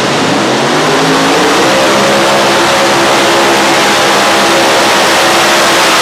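Multi-engine unlimited-class pulling tractor launching and pulling a weight-transfer sled at full throttle: the engines' pitch climbs over the first two seconds, then holds at high revs.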